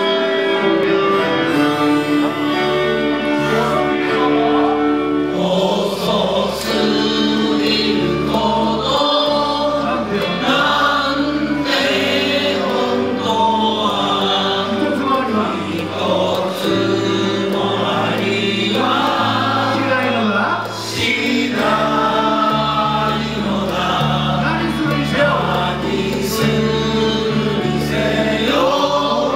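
Choir of mostly male voices singing a song together into microphones, over instrumental backing that holds steady low bass notes.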